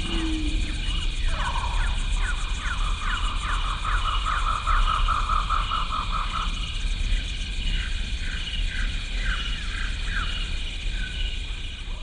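Wild-animal ambience on the sound track: a run of quick falling chirps, about three a second, over a steady high buzz and a low hum, the chirps thinning out in the second half.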